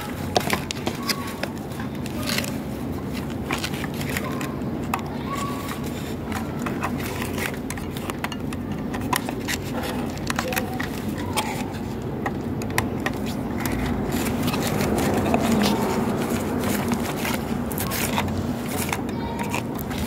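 Screwdriver clicking and scraping on the terminal screws of an electric water heater's thermostat as the supply wires are fastened, many small ticks over steady background noise.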